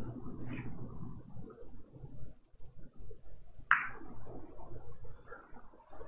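Carom billiard balls rolling over the cloth and rebounding off the cushions during a three-cushion shot. There are light ticks throughout and one sharp click a little past halfway, as the cue ball strikes the red ball to complete the point.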